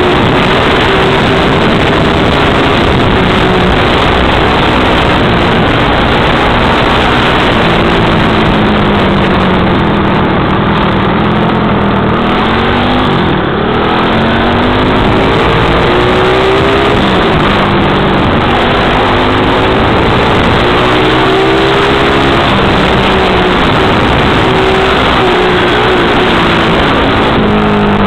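Small dirt bike engine running under way, its pitch repeatedly rising and falling as the revs change, with heavy wind noise rushing over the microphone.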